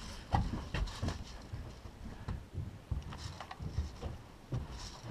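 Footsteps on a hollow plywood walkway: uneven knocks, about two a second.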